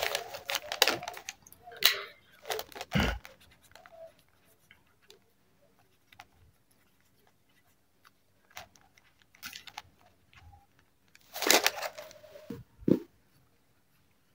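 Handling noise: a paper slip and cotton cloth rustling and crinkling in short bursts, a few near the start and a couple more near the end, with only faint ticks in the quiet stretch between.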